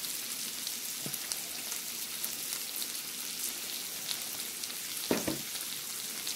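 Shrimp and sausage sizzling steadily on a hot ridged grill pan, a constant hiss with fine crackles. A short soft knock about five seconds in.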